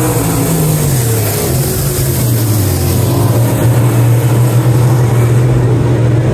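A pack of dirt-track stock cars racing around the oval, their engines running loud. The engine note drops in pitch about a second in and then holds steady.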